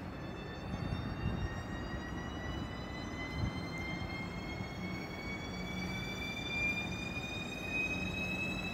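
Deutsche Bahn ICE electric train pulling away slowly, its traction electrics whining in a steadily rising pitch as it speeds up, over a low rumble of the train.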